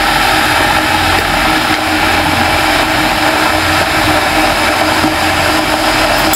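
A small motor running steadily, a loud even whir with a low hum under it.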